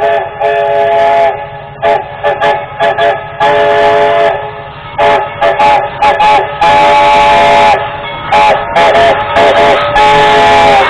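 A train's multi-note chime whistle sounds one chord over and over in a rapid rhythm of short toots and longer blasts. The longest blasts come about seven seconds in and again near the end.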